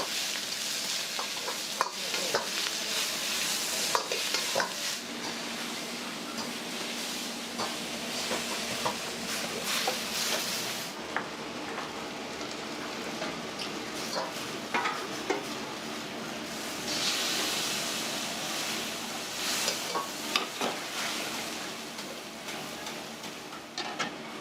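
Champon being stir-fried in a hot wok: a steady sizzle with the ladle knocking and scraping against the pan. The sizzle swells and drops back, loudest through the first ten seconds and again a little past the middle.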